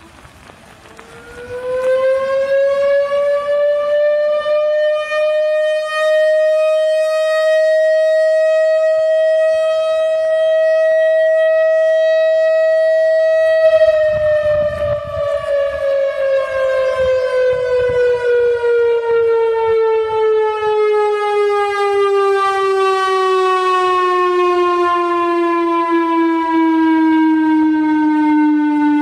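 ACA outdoor warning siren, run by a digital controller, winding up from quiet about a second in to a steady wail. It holds one pitch for several seconds, then slowly winds down through the second half and is still falling at the end.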